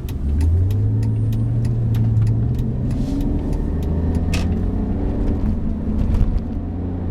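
BMW 330ci ZHP's 3.0-litre inline-six pulling under acceleration. Its low engine note drops in pitch about three seconds in as it shifts up, then carries on, with scattered sharp clicks over it.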